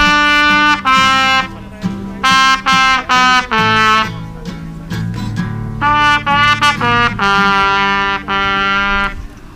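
Live band music: a bright lead instrument plays short held melodic phrases over a bass line, and the music stops shortly before the end.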